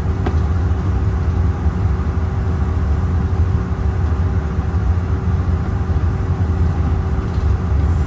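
Steady cabin noise of a CRJ-900 jet taxiing: an even low rumble from the idling engines and the rolling airframe, with a few faint steady tones above it.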